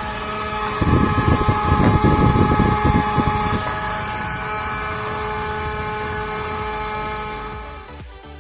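Homemade table fan's small 12-volt motor running with a steady whine while its blades push a strong stream of air. About a second in, a louder buffeting rush of air comes in and lasts two or three seconds, and the sound drops away near the end.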